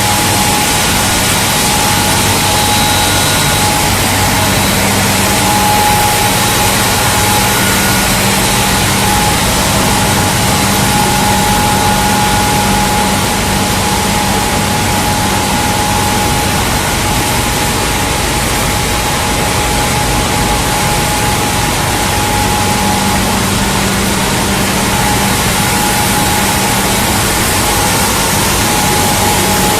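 Plastic film recycling and washing line machinery running continuously: a loud, even hiss with a steady whine and a low hum.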